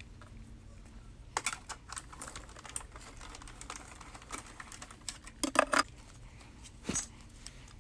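Scattered light clicks and knocks from working a Big Shot die-cutting machine: setting its cutting plates and metal die, cranking them through, and lifting the die off the cut craft foam. The loudest clicks come a little past halfway.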